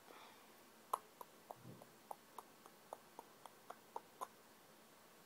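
A run of faint, quick clicks, about four a second, starting about a second in and stopping near the end, with a brief low hum among them.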